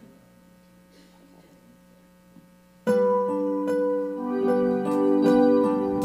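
A quiet pause with a faint hum, then about three seconds in a keyboard starts the introduction of a worship song with sustained, piano-like chords.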